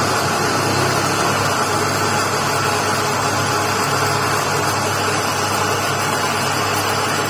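Lathe running steadily, a constant motor hum under an even machining noise.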